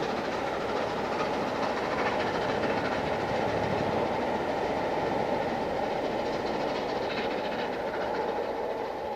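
Steam-hauled passenger train rolling past, its wheels rumbling steadily on the rails.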